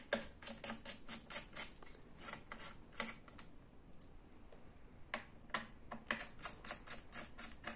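Quick, light clicks and taps of hands handling small screws, a screwdriver and plastic parts inside an opened laptop while its CPU cooler is being taken out. The clicks come several a second at first and thin out to scattered taps after about three and a half seconds.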